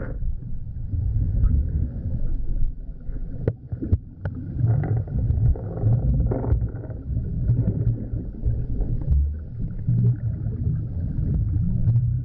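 Muffled underwater sound of pool water churned by a large dog paddling and diving: a steady low rumble of moving water and bubbles, with a few sharp clicks.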